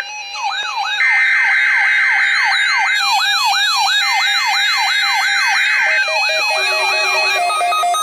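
NOAA Weather Radio SAME data header: two loud bursts of steady, rasping digital tones with a one-second gap between them, marking the start of a Required Weekly Test. Over them runs a rising siren-like tone, repeated about two and a half times a second. Near the end it gives way to stepped electronic tones.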